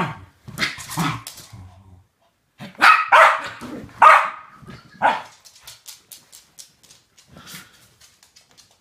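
West Highland white terrier barking, about six barks over the first five seconds or so, then only faint clicks.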